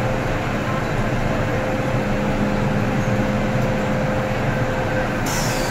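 Steady hum and rumble of an underground metro platform with a train in the station, a constant drone under the noise of a moving crowd. A hiss starts near the end.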